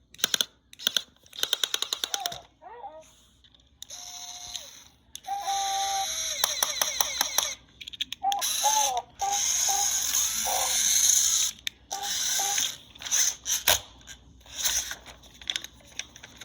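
Hexbug Mobots toy robot making electronic sounds: short beeps and held tones, warbling pitch glides and rapid clicking, broken by brief pauses.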